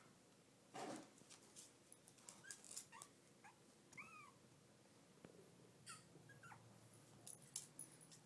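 Brussels Griffon/Shih Tzu–miniature poodle mix puppies giving faint, short, high squeaks and whimpers, about half a dozen over a few seconds, with light ticks and knocks from their play.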